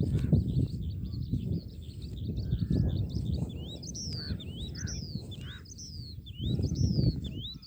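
Wild birds calling, a run of quick high whistled notes that sweep up and down, about two a second, from about halfway through. Under them a low rumbling noise, loudest near the start and again near the end.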